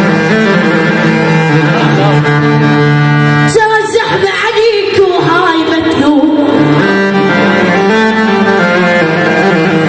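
Music: long held notes with a full, chord-like sound, and a singing voice with a wavering melody in the middle stretch.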